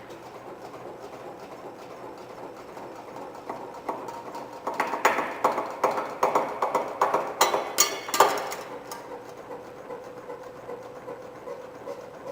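CNC channel letter bending machine running with a steady hum, and through the middle a few seconds of rapid clacking and metallic knocks as it works the metal strip.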